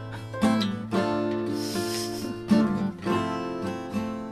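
Acoustic guitar strumming chords, with a digital piano playing along, in an instrumental gap of a song.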